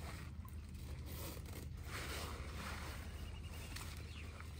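Nylon mesh net rustling and scraping as it is handled and pulled, in irregular swishes.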